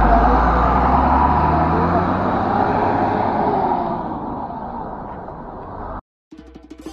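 A bus passing close by, its engine rumble and road noise loudest at the start and fading away over about five seconds. Near the end the sound cuts out and music begins.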